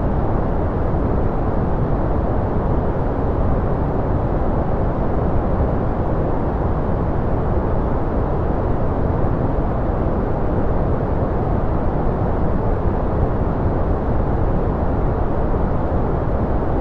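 Steady, unchanging noise played as a white noise track for relaxation, with no tones or events. It is a deep, even rush, strongest in the low and middle range and falling off in the highs.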